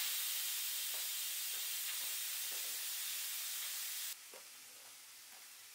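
Aroma electric pressure cooker venting steam through its release valve with a loud, steady hiss, releasing the pressure. The hiss cuts off suddenly about four seconds in.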